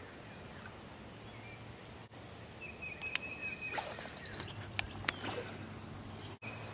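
Steady high-pitched drone of insects, with a short bird call near the middle and a few sharp clicks around three and five seconds in.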